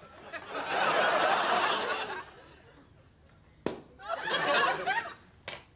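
Studio audience laughing, then two sharp knocks about two seconds apart with more laughter between them.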